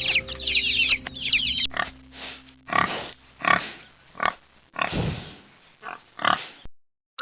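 Domestic pig grunting, about seven short oinks in a row that stop abruptly near the end. For the first second and a half, chicks peep over light music.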